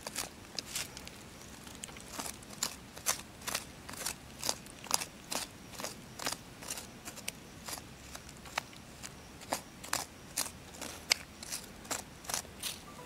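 A thin stick scratching and scraping loose soil in short, irregular strokes, about two or three a second.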